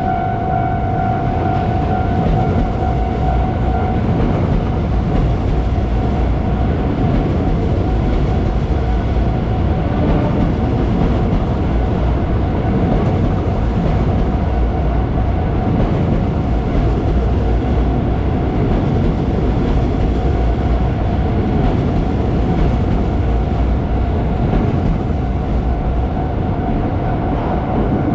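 A train passing over a level crossing: a loud, steady rumble of wheels on rails. A level-crossing alarm's steady tone is heard in the first few seconds before the train noise drowns it, and it comes back faintly near the end.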